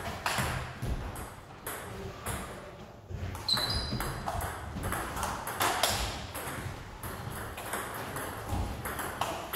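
Table tennis rally: the ball clicking sharply off the paddles and bouncing on the table in an irregular string of hits, one with a short ringing ping about three and a half seconds in.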